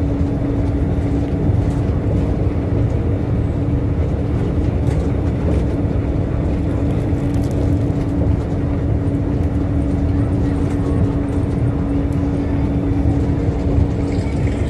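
Ride noise inside a moving rubber-tyred tram: a steady rumble with a constant low hum.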